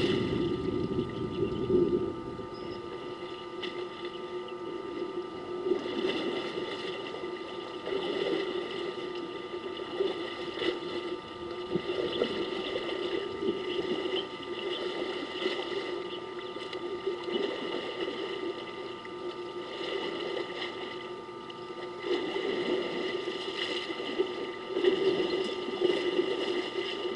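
Elephants wading and splashing in a waterhole: uneven sloshing and splashing of water that swells and fades, over a steady faint hum.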